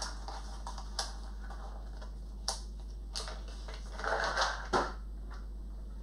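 Hand-handling clicks of small metal screws and a small parts box: a few separate sharp clicks, with a short rustling clatter about four seconds in.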